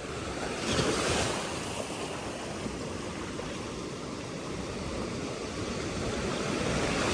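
Sea waves and wind buffeting the microphone: a steady rushing noise that swells about a second in and grows again near the end.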